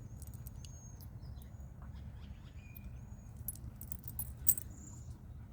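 A small bird chirping, short high thin notes about twice a second, fading out about halfway through. Light metallic jingling and clicks follow, with one sharp click about four and a half seconds in, over a low steady rumble.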